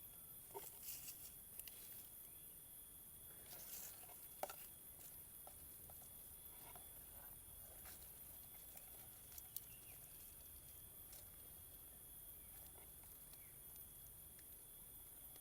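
Quiet outdoor ambience: a faint, steady, high insect trill, with a few soft rustles and clicks, one sharper click about four seconds in.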